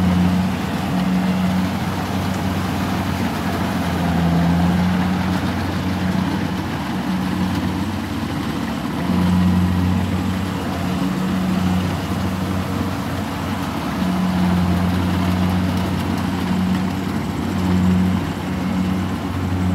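Diesel engines of Kubota rice combine harvesters running, with a steady hum whose strength swells and eases every few seconds.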